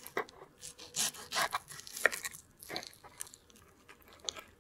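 Table knife sawing down through a slice of invisible apple cake, its thin stacked apple layers giving rasping, scratchy strokes, with a fork steadying it and a few sharp clicks of the cutlery, the sharpest about two seconds in.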